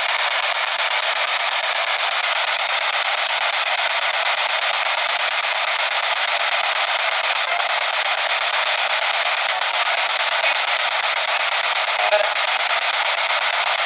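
P-SB7 spirit box sweeping through radio stations, giving a steady hiss of radio static from its small speaker. Near the end comes a brief snatch of sound that the investigator reads as a voice saying "I'm dead".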